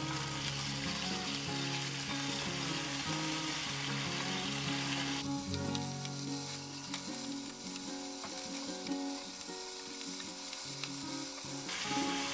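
Ground beef sizzling as it sears in a hot nonstick wok, with a wooden spatula scraping and flipping the meat. The sizzle grows brighter about five seconds in and eases off near the end.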